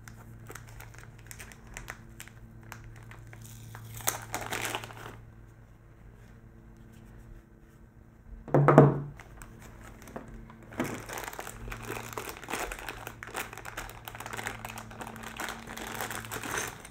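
Thin plastic packaging bags crinkling and rustling as a camera battery and small accessories are unwrapped by hand, in a spell around four seconds in and again through the second half. One brief, louder thud comes about nine seconds in.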